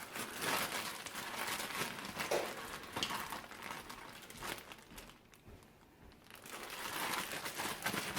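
A plastic bag holding chicken hearts in marinade crinkling as it is handled and shaped by hand, pausing for about a second and a half partway through before the rustling starts again.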